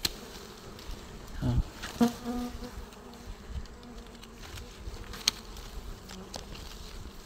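A colony of dwarf honey bees buzzing steadily around their exposed comb, with a bee passing close by about two seconds in. A few sharp clicks of pruning shears working at the branch that holds the nest.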